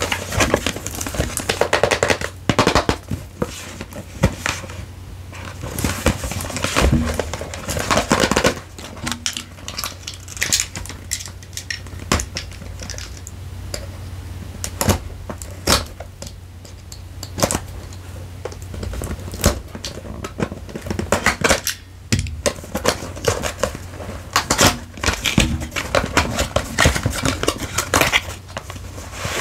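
Close-miked handling of a camera and its packaging: irregular taps, clicks and knocks of hard plastic and cardboard, with short bursts of rustling and crinkling.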